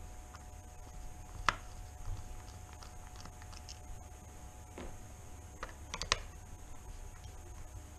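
A hand Torx screwdriver clicking and scraping against screws in the metal casing of a Bafang M600 mid-drive motor as they are undone: a few light, sharp ticks, one about a second and a half in and a small cluster near six seconds, over a faint steady hum.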